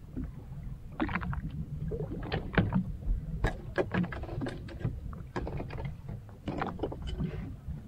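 Small fishing boat drifting at sea: a low steady rumble with water against the hull, and irregular knocks and clicks, at times several a second, as a longline is hauled in by hand over the side.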